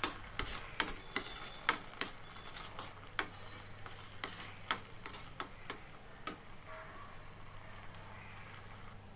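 Steel spoon clinking and scraping against a stainless steel pan while stirring thick tamarind paste cooked down to a paste, a run of irregular sharp clicks that stops about six seconds in.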